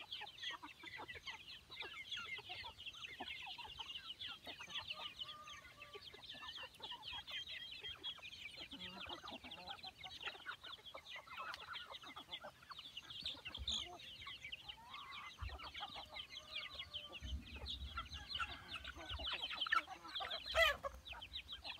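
A flock of native village chickens clucking while they feed on scattered grain, with many short high calls overlapping. One louder, sharper call sounds near the end.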